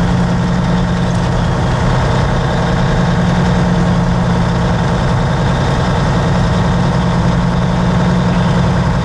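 Truck's diesel engine running at a steady drone, heard from inside the cab, with an even low hum and road noise.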